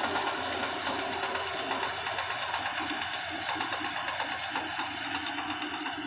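Compact tracked rice combine harvester running steadily while cutting standing rice. Its engine and cutting and threshing machinery make a dense, continuous mechanical sound with several steady high tones.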